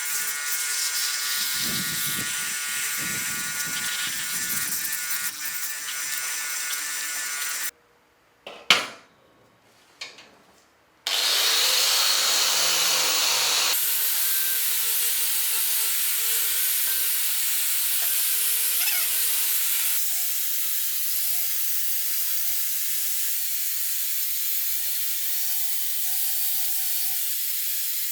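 An electric power tool runs against metal: a loud rasping noise over a steady motor tone. It comes in several cut-together takes, with a near-silent gap about eight seconds in that holds two sharp knocks.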